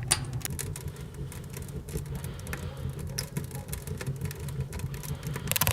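Wood fire crackling and popping in the firebox of a small steel tent stove, many sharp clicks over a steady low rumble, the crackles growing thicker near the end.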